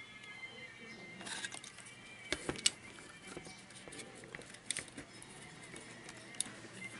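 Scattered small clicks and taps as the wire leads of new silicon rectifier diodes are pushed and bent through a power-supply circuit board, in a few short clusters, the sharpest about two and a half seconds in.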